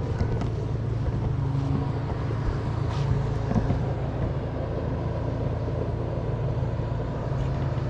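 A motor engine running steadily, a low even hum with no change in speed.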